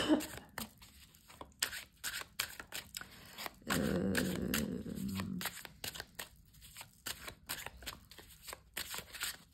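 A deck of tarot cards being shuffled overhand by hand: a run of quick, soft card clicks and slaps. A louder, fuller rustle lasts about a second and a half near the middle.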